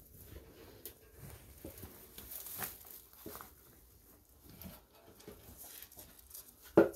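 Faint rustling of straw bedding with scattered small clicks and crunches as rabbits move about and eat pellets. A short, sharper sound comes just before the end.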